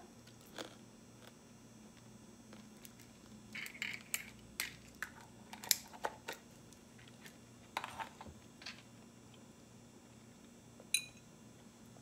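Faint chewing of a dried miracle berry: soft crunches and mouth clicks, scattered through the middle, then one sharp click near the end.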